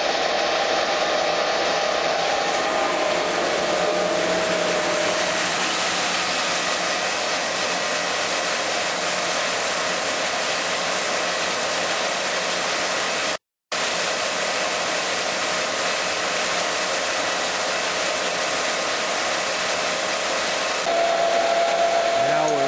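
Two Pelton-wheel micro-hydro turbine-generators running under full water pressure: a loud, steady rush of water jets spraying onto the runners inside their housings, over a faint steady hum. The sound drops out for an instant about halfway through.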